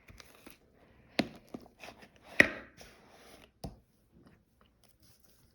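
A spoon stirring glue and glitter in a bowl for slime, with irregular knocks and scrapes against the bowl. The loudest knock comes about two and a half seconds in, and the sound dies down near the end.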